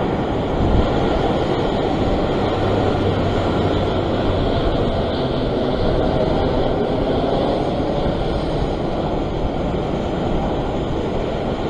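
Ocean surf breaking and washing over rock ledges: a steady, continuous rush of water.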